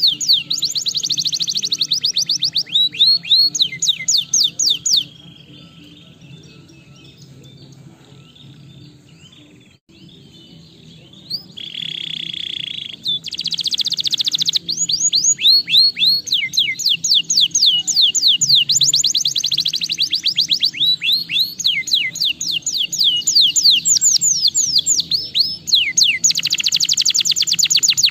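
Domestic canary singing in fast trills of rapidly repeated sweeping notes, broken about five seconds in by a stretch of softer warbling. The loud rolling trills resume after a buzzy note and a sharp chirp. A faint steady low hum runs underneath.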